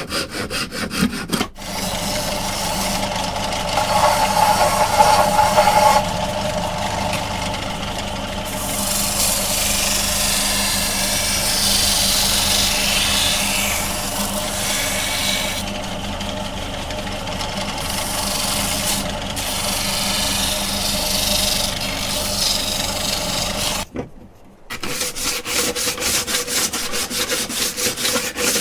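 Woodworking tools on bamboo or wood: quick repeated sawing or rasping strokes, then a long stretch of steady grinding noise with a constant hum. After an abrupt break near the end, the rapid strokes start again.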